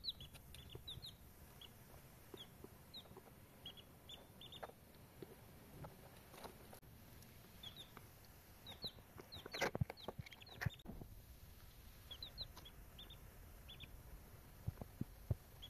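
Baby chicks peeping in short, high chirps that come in loose clusters. A few sharp clicks or knocks stand out about ten seconds in.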